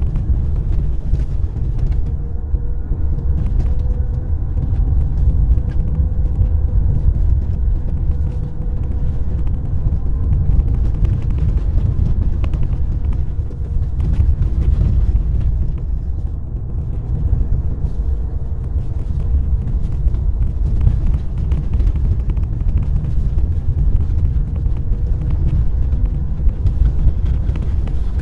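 Car driving on a snowy road: a steady low rumble of tyres and engine, with a faint steady hum and scattered light clicks.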